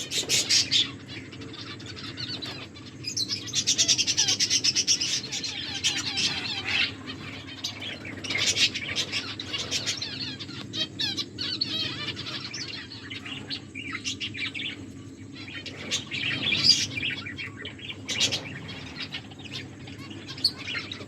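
Pet finches chirping: fast runs of short, high chirps, with the longest run about three seconds in.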